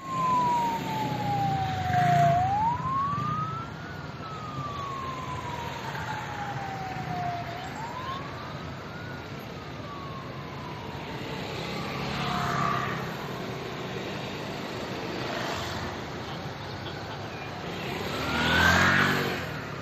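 An emergency vehicle siren wailing slowly, each cycle rising quickly and falling back more slowly, about every five seconds, and fading out about two-thirds of the way through. It sounds over steady street traffic, with vehicles passing louder a few times and the siren rising again near the end.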